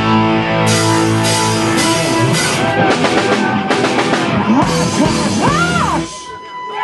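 Live rock band with electric guitar and drum kit playing loud hard rock, building with a run of repeated cymbal crashes and bending guitar notes. The band cuts off about six seconds in, leaving a single note ringing on.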